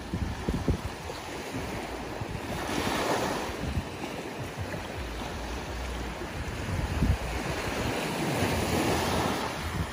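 Small ocean waves breaking and washing up a sandy shore, surging about three seconds in and again near the end, with wind buffeting the microphone.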